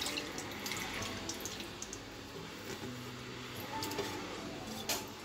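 Cabbage cooking water poured from a steel bowl into a kadai of sauce, a steady pouring and splashing of liquid.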